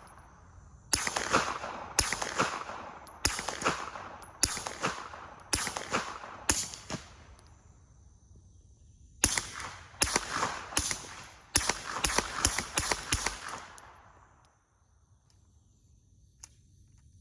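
Suppressed 9mm Glock 19 Gen 5 pistol shots through a GSL Stealth suppressor, each shot trailing off briefly. About six shots come roughly a second apart, then after a short pause a faster string of about eight.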